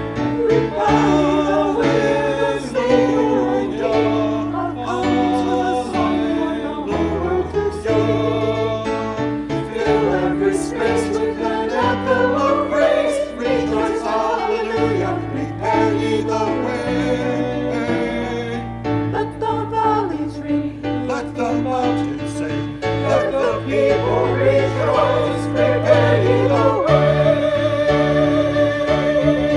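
Worship song with voices singing over keyboard accompaniment: a steady held note runs under changing bass notes, with melody lines moving above.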